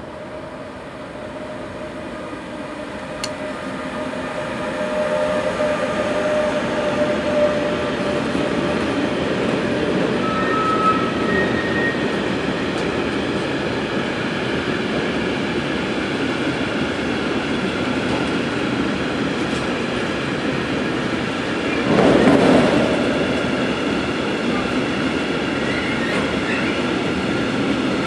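Freight train of rail tank wagons behind a class 186 TRAXX electric locomotive passing close by. The rolling rumble builds over the first five seconds as it nears, then holds steady as the wagons roll past, with a few short thin squealing tones and a brief louder rush about 22 seconds in.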